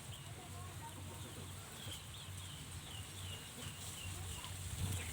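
Birds chirping: a quick series of short, high, down-curving chirps about two seconds in, with a few fainter, lower calls, over a steady low hum and a thin high hiss.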